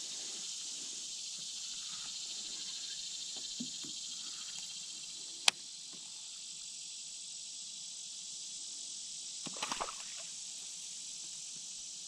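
Steady high-pitched chorus of summer insects, with a single sharp click about five and a half seconds in and a brief clatter near the ten-second mark.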